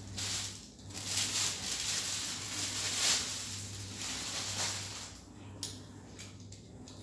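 Plastic wrapping crinkling and rustling as it is stripped off a folded metal light stand, followed by quieter handling of the stand with a single light click.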